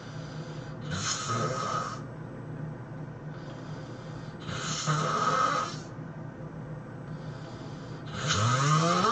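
A person snoring loudly in a steady rhythm: three rasping snores about four seconds apart, with a quieter breath between them. The last snore rises in pitch.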